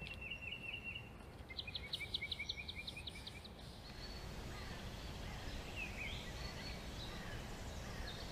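Outdoor ambience with a small bird singing: a rapid series of short, high repeated notes twice in the first few seconds, then fainter scattered chirps over steady background noise.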